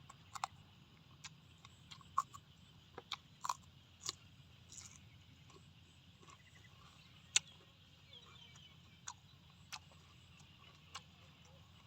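Irregular sharp clicks and taps, several a second in the first few seconds and only a few after that, over a faint steady low hum and hiss.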